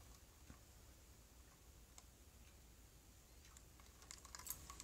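Near silence: room tone with a few faint clicks, more of them near the end.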